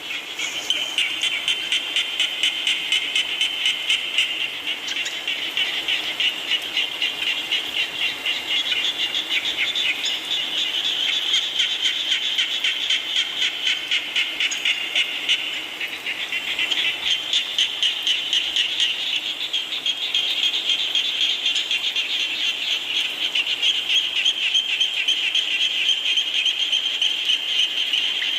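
A dense chorus of frogs calling in a fast, pulsing rhythm over a steady hiss of falling rain; the chorus thins briefly just past halfway, then picks up again.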